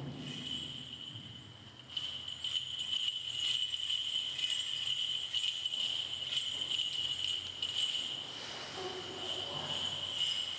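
Small metal bells jingling in quick, irregular shakes from about two seconds in, over a steady high-pitched ringing tone.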